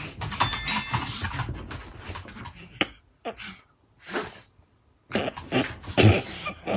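A pug's short nasal snorts and huffs in separate bursts, with the loudest cluster near the end.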